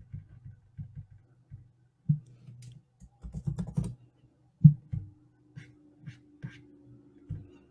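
Scattered clicks and taps of a computer keyboard and mouse, with a quick run of keystrokes about three seconds in. A faint steady hum comes in just before the five-second mark.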